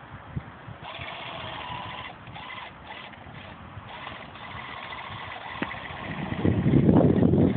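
Small electric motor whine from a battery-powered autopilot test cart, switching on and off in short spells. A loud, low rumble takes over in the last second and a half.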